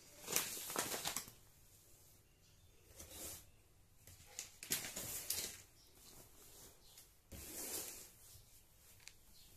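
Plastic rice bags rustling and crinkling as they are handled and shifted, in four short bursts, the first the loudest.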